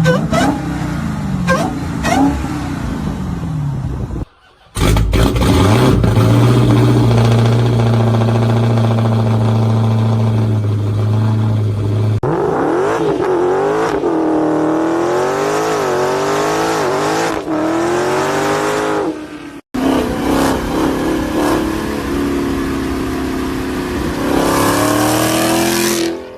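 Dodge Challenger Hemi V8 revving and accelerating, its pitch climbing and dropping with the revs. A steady high note holds for several seconds in the middle, followed by a run of rising sweeps. The sound cuts off briefly about four seconds in and again near the twenty-second mark, where clips are joined.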